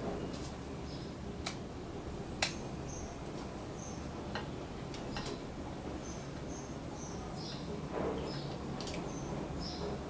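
Scattered sharp clicks as the Revlon One Step hair dryer brush is handled and its switch worked, with no motor starting: the unit will not power on. Short, faint, high chirps recur over a low steady hum.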